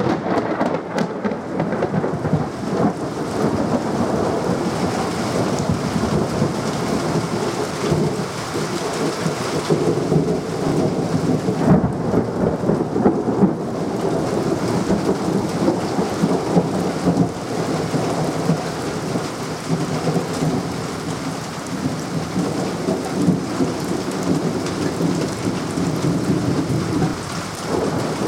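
Thunderstorm: rain falling steadily with thunder rumbling almost without a break.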